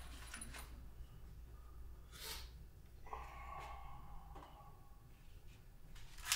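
Quiet handling sounds: a breathy hiss about two seconds in, then a short squeak as a wooden cabinet door swings open, and a sharp click near the end.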